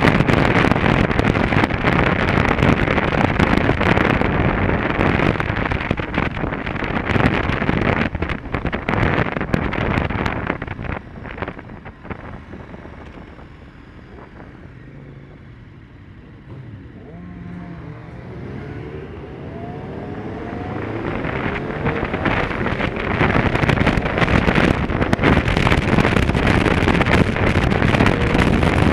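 Wind noise on the microphone over a motorcycle's engine while riding at speed. About eleven seconds in, the noise falls away as the bike slows, and the engine is heard pulling up through the revs with rising pitch before the wind noise builds again near the end as it speeds up.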